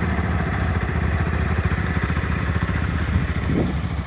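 Motorcycle engine idling steadily with an even, fast pulse. A short rising tone sounds briefly near the end.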